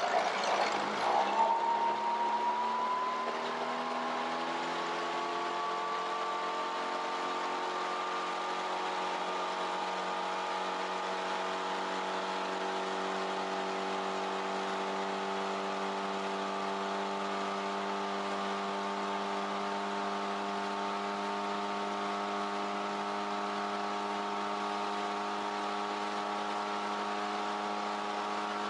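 A small boat's outboard motor speeding up, its pitch climbing over the first several seconds, then running steadily at cruising speed. A brief rush of noise sounds in the first couple of seconds as it gets going.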